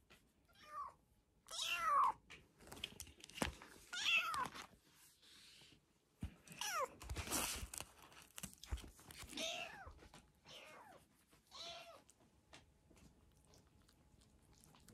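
Kittens about five weeks old mewing repeatedly: about eight short, high, bending calls, with a few sharp knocks between them.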